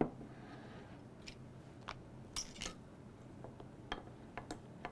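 A spoon stirring melted chocolate frosting in a glass measuring cup, giving faint, irregular light clinks and scrapes against the glass, with a low steady room hum underneath.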